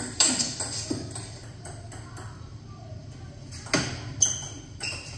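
Table tennis ball clicking sharply off paddles and table during a rally: a few quick clicks in the first second, then, after a lull, two louder clicks near the end.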